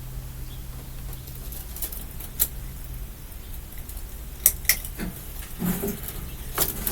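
Steady low hum of a ceiling fan's motor, fading out about three seconds in, followed by scattered sharp clicks and knocks of the fan being handled.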